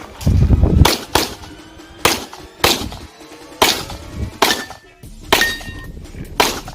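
Handgun shots fired at an irregular pace, about eight in all, a few followed by a brief high metallic ring.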